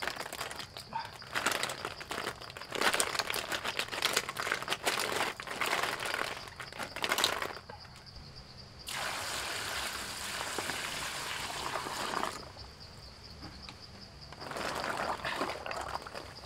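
Freshwater snail shells tumbling out of a wicker basket and clattering onto a stone trough for about seven seconds. A steady pour of water follows for about three seconds, then a shorter spell of shells sloshing and rubbing together in the water as they are washed by hand.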